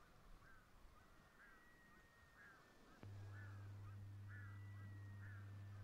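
Faint bird calls repeating about once a second over a quiet outdoor background. About three seconds in, a low steady hum cuts in with a click and then runs on.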